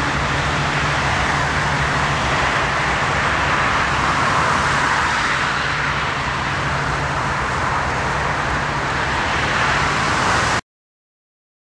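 Twin-engine jet aircraft landing: a steady rushing jet-engine noise with a low hum underneath. It cuts off abruptly about ten and a half seconds in.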